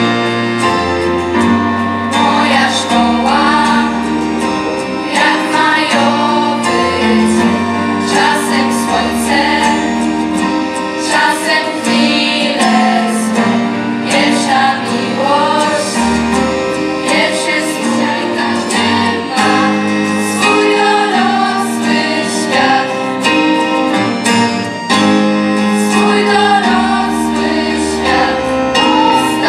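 A girls' choir singing a song with acoustic guitar and accordion accompaniment, over low bass notes that change every second or two.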